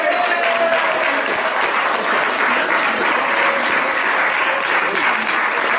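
Small crowd applauding steadily.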